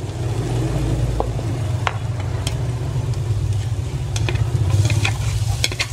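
Chopped garlic frying in melted margarine in an enamel pot: a steady sizzle with a few short clicks and scrapes from the spoon and bowl as chopped onion is tipped in, the sizzle brightening near the end. A steady low hum runs underneath.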